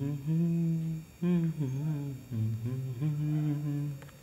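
A man humming a tune, a few phrases of held notes that step up and down in pitch, with short breaks between them.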